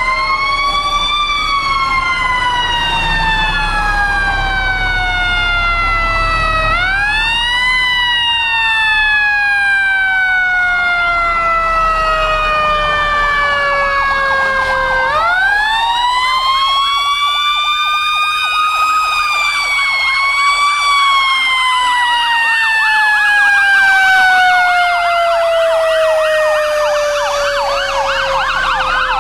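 Sirens on passing fire trucks wailing together, each cycle rising quickly and then falling slowly over several seconds, with two sirens overlapping out of step. Near the end a fast warbling yelp siren joins in.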